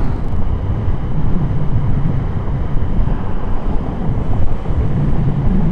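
Wind buffeting the microphone over the steady roar of a motorcycle riding at motorway speed.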